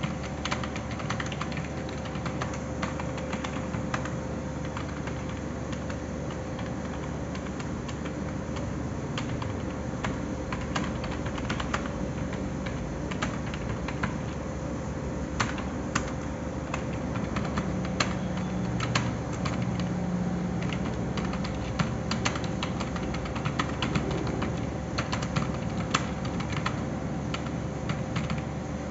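Computer keyboard being typed on continuously, a fast irregular run of key clicks, over a steady low hum.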